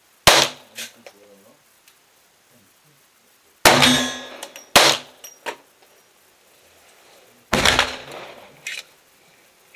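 Hammerli Xesse Sport .22 LR pistol firing four shots at uneven intervals, each a sharp crack ringing on inside a wooden shooting shed, with a couple of lighter clinks between shots.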